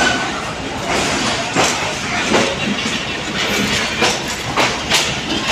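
Passenger train coaches rolling slowly alongside a platform on arrival, their wheels knocking over rail joints at an uneven pace, about one to two knocks a second, over a steady rumble and crowd chatter.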